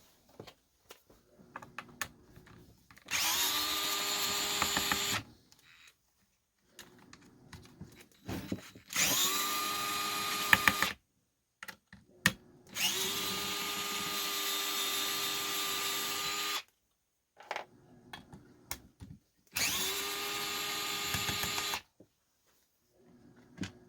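Electric drill-driver running in four separate bursts of about two to four seconds each. Each burst spins up quickly to a steady whine, and there are small clicks and taps of handling in between. Screws are being run out while a chainsaw is taken apart.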